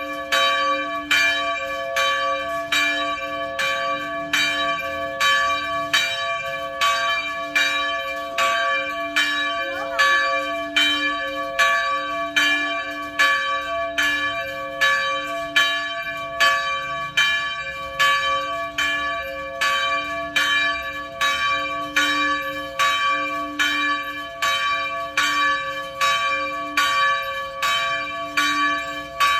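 Church bell tolling in a steady, even rhythm, about three strokes every two seconds, each stroke ringing on into the next.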